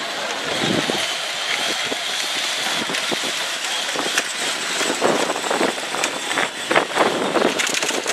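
Battery-powered Power Wheels ride-on toy cars driving and bumping, their small electric motors whining steadily, with scattered knocks in the second half.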